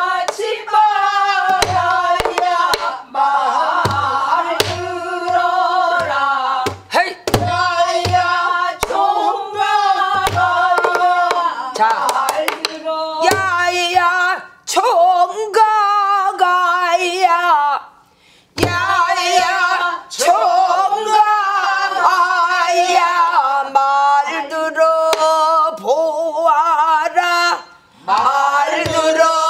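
A woman sings a Namdo folk song (japga) with a heavy, wavering vibrato, pausing briefly twice. Strokes on a buk barrel drum keep the rhythm, most of them in the first half.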